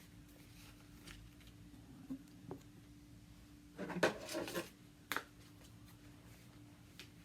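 Light handling noises on a work surface as small adhesive lure-eye dots are picked up: a few soft clicks, a short rustle about four seconds in and another click just after, over a faint steady hum.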